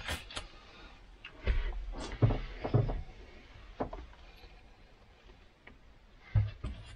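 Handling noises inside a car: scattered clicks, knocks and rubbing as someone pulls on rubber gloves, shifts about on the floor and handles a paint can and brush, with a few dull low thumps about a second and a half in and again near the end.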